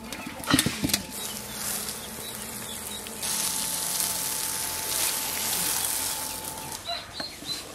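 A few clanks of an aluminium cooking pot being handled and wiped with a cloth, then from about three seconds in a steady hiss of water falling on wet soil, with birds chirping near the end.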